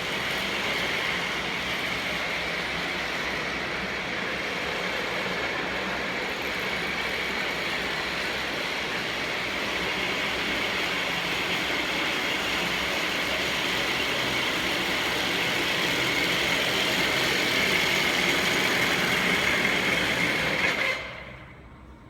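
Steady machine noise with a high whine, growing a little louder, then switched off about a second before the end and running down quickly.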